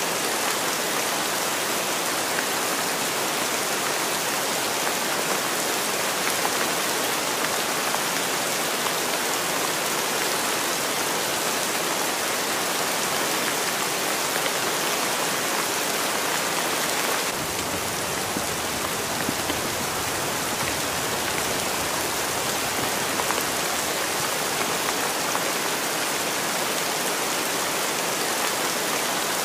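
Steady rain ambience, an even hiss of falling rain with no breaks. About halfway through it turns fuller and lower in tone.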